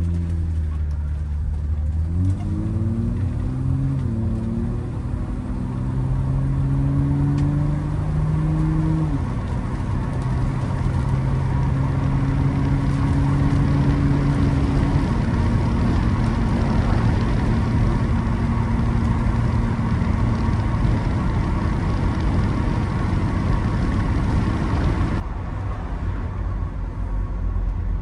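BMW E30 325i's 2.5-litre straight-six, heard inside the cabin, pulling away through the automatic gearbox. Its note climbs and then steps down at each upshift before settling into a steady cruise over tyre and road noise. Near the end the engine note falls away suddenly as the car comes off the throttle.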